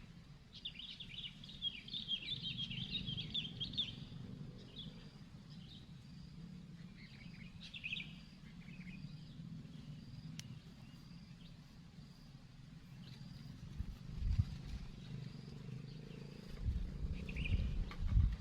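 Small birds chirping in short twittering bursts, several times. Wind rumbles on the microphone throughout, with strong gusts about fourteen seconds in and near the end.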